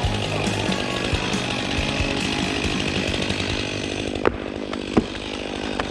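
Chainsaw running steadily during tree felling, with two sharp knocks about four and five seconds in.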